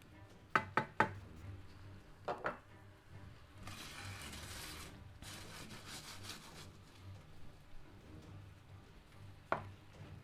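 A spoon stirring and scraping a stock and cornflour sauce in a large pan as it thickens. A few sharp knocks against the pan come in the first few seconds and once near the end. Two stretches of scraping come in the middle.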